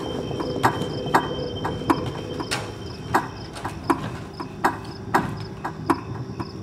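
Rhythmic sharp clicks, about two a second, over a steady low drone.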